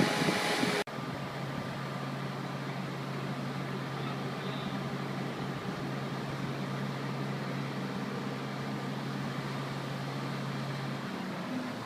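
Truck engine running steadily with a constant low hum. An abrupt cut about a second in ends a louder, noisier sound, and the low tone stops shortly before the end.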